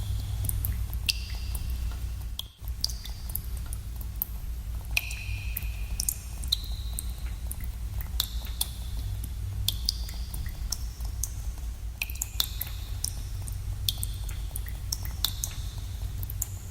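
Water drops falling irregularly into pools in a cave, each a sharp plink with a short, echoing ring at a different pitch, over a steady low rumble. The sound drops out for a moment about two and a half seconds in.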